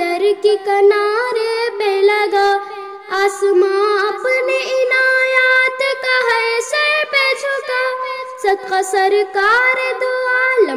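A young girl singing an Urdu hamd (devotional song praising God), in phrases with long held, ornamented notes.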